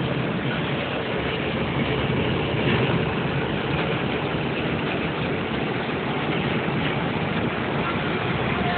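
Steady traffic noise on a highway: engine hum and road noise at an even level.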